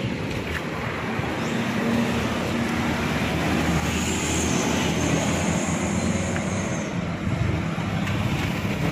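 Steady road traffic: passing vehicles' engines and tyres running on, with a faint high whine from about four to seven seconds in.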